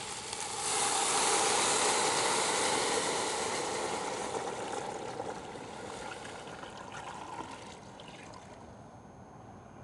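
Water pouring in a steady stream from a glass jug into a stainless steel stock pot of seared chicken pieces and whole spices, filling it to cover the meat. The pour swells about half a second in and fades gradually over the last few seconds as the jug empties.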